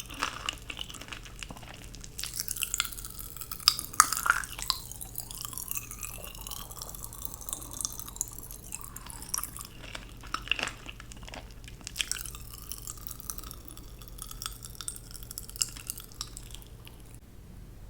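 Close-miked mouth sounds of candy being eaten: wet smacking, sucking and chewing with sharp clicks and pops, coming in irregular bursts.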